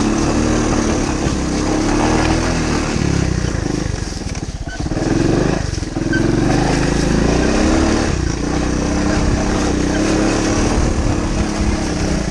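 1985 Honda ATC 125 three-wheeler's small four-stroke single-cylinder engine running under way. Its note rises and falls with the throttle, easing off briefly about four and a half seconds in and again around six seconds.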